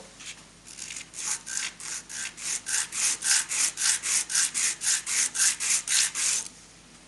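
A cast aluminium piece of a Mini cylinder head plate is rubbed back and forth on abrasive cloth laid on a flat table, to true its face flat. Quick rasping strokes come about four or five a second, growing louder over the first couple of seconds and stopping abruptly near the end.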